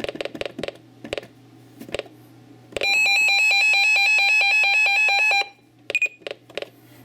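Crackling radio static, then a loud electronic alert tone that rapidly alternates in pitch for under three seconds, cutting off abruptly, followed by a few more crackles. It is an emergency alert signal received over weather radio.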